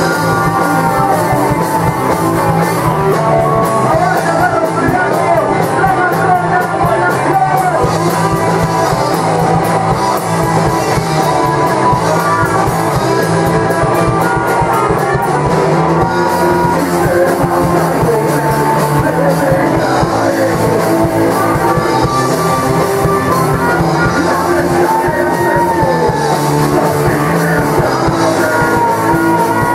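Rock band playing live and loud: electric guitars, bass and a drum kit, with a singer's vocals over them.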